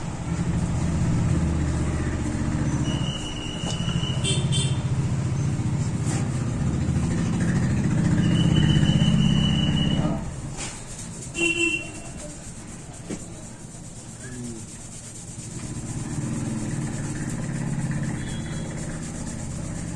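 A motor running with a low rumble that is loud for about the first ten seconds and then fades, with a few short, high, steady beeps over it.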